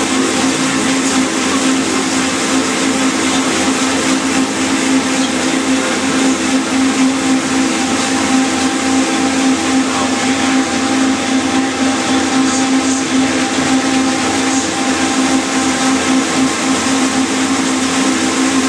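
A riverboat's red stern paddlewheel turning, its blades churning and splashing the water in a steady loud rush, over a steady mechanical hum with a regular low pulsing.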